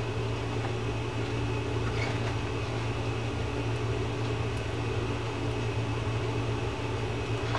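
A steady low machine hum, like a fan or air conditioner running, with a faint click about two seconds in.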